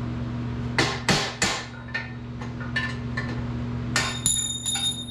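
Hammer blows on metal, as when driving out a dirt bike frame's steering stem bearings: about three hard strikes a second in, a few lighter taps, then a quick run of ringing metallic strikes near the end. A steady low hum runs underneath.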